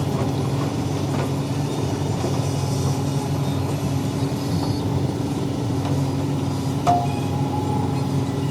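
Heavy diesel engine of a construction machine running steadily at a constant speed, with a single sharp metallic clank about seven seconds in.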